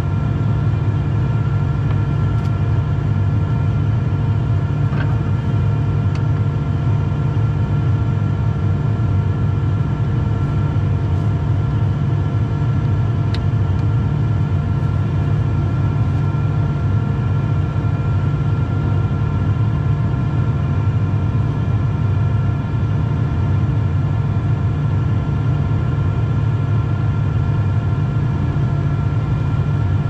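John Deere S680 combine running steadily: a constant low drone with a steady high whine over it.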